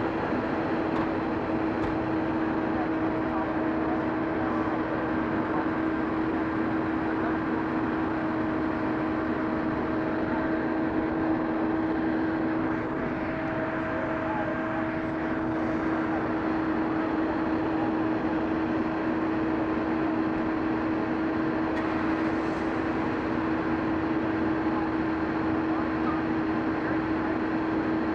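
Steady mechanical drone of running engines with a constant, unchanging hum.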